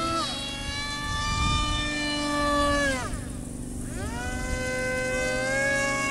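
Two small RC foam planes' electric motors and propellers whining. Their pitch shifts up and down with throttle. About three seconds in the pitch drops steeply as the throttle is cut, then climbs back within a second as power is reapplied.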